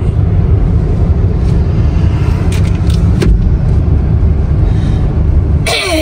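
Steady, loud low rumble of a road vehicle in motion, heard from on board.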